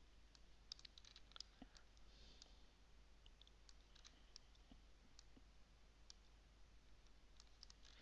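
Faint computer mouse clicks, irregular, with a quick cluster about a second in and scattered single clicks after, over near-silent room tone with a low steady hum.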